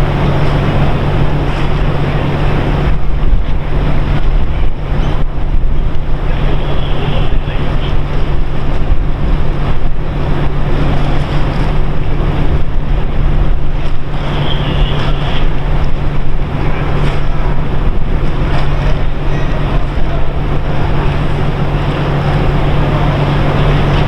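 Wind buffeting the microphone in gusts, over a steady low mechanical hum from the berthed ship.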